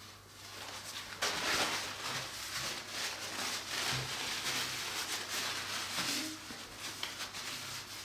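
Rustling and rubbing of things being handled by hand, running for about six seconds from about a second in.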